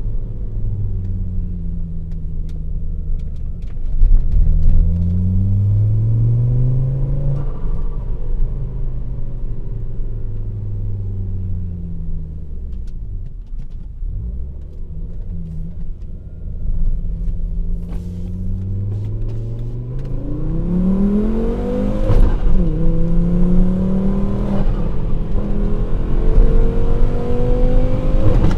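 Volvo S60 2.0T's turbocharged engine with a straight-pipe exhaust and two high-flow mufflers, revving up and down under driving. The engine note rises, falls away, then climbs again and breaks off sharply twice, about 22 seconds in and near the end, as at gear changes.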